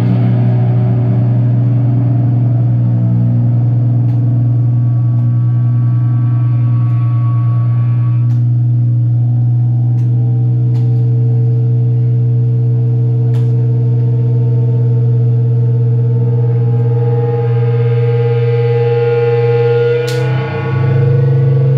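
Live heavy metal band's distorted electric guitars and bass letting a chord ring out in a long, loud sustain, with a higher held note joining about halfway through.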